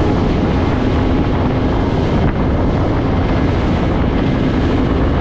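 Boat under way: a steady engine drone mixed with rushing water, and wind buffeting the microphone.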